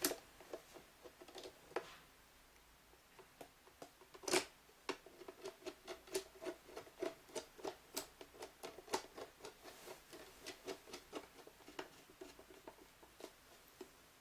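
Screwdriver turning a small screw into a digital door lock's front panel: a faint string of small clicks and squeaks, about two to three a second, after a single sharp knock about four seconds in.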